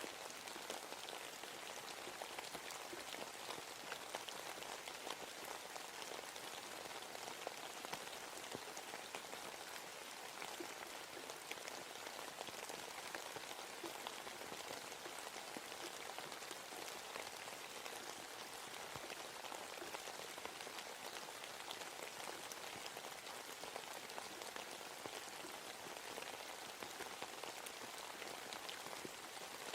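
Steady rain falling in a forest, a constant hiss dense with the patter of individual drops.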